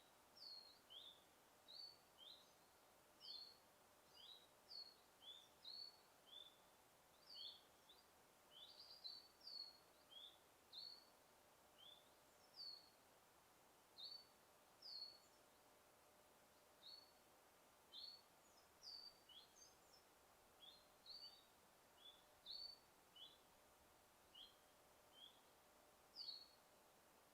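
Faint bird chirping: short, high notes that slide down in pitch, repeated about once or twice a second over a faint steady hiss of forest ambience.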